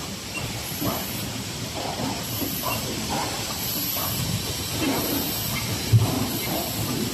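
Cartoning and overwrapping packing line machinery running: a steady hiss with a faint high-pitched sound that repeats at a steady pace with the machine's cycle, and a single low thump about six seconds in.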